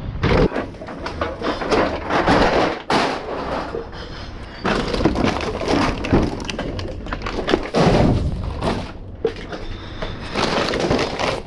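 Clear plastic bags stuffed with empty bottles and cans clinking, crunching and rustling as they are heaved and shifted inside a box truck's cargo area. The sound comes in uneven surges, with bursts of clattering glass.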